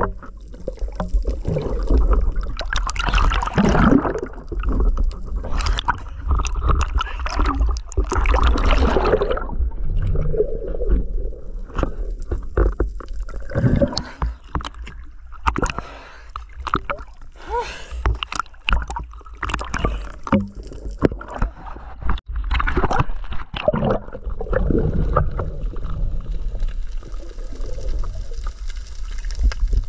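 Water gurgling and sloshing around an underwater camera, in irregular swells over a constant low rumble, with frequent short knocks and clicks from the gear and water moving against the housing.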